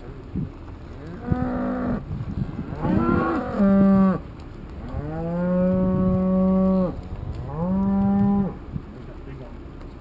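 Cattle mooing: four separate moos, the longest lasting about two seconds, each rising at the start and then holding a steady pitch.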